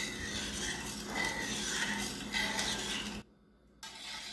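Metal spoon stirring a cold mix of crystal sugar and water in a stainless steel pot, the spoon scraping the undissolved sugar against the pot. The stirring breaks off for about half a second some three seconds in, then goes on.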